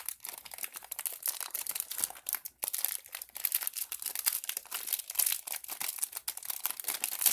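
Clear plastic bag crinkling and crackling in a dense, irregular run as it is worked off a 3x3 speed cube by hand.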